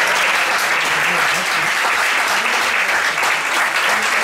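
Audience applauding steadily, with voices faintly underneath.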